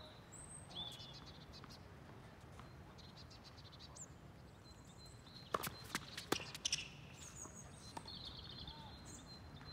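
Birds chirping, with a quick run of five or so sharp knocks about halfway through: tennis balls being hit and bouncing on the court.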